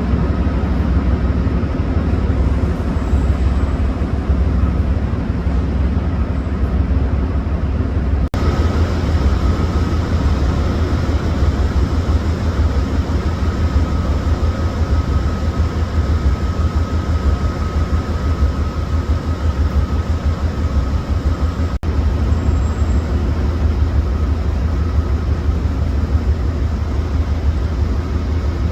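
Amtrak P42 diesel-electric locomotive idling with a steady, deep, throbbing engine rumble. A faint steady whine runs through the middle stretch.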